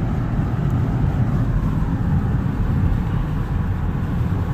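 Steady low rumble of a car driving, heard from inside the cabin: engine and tyre noise with no separate events.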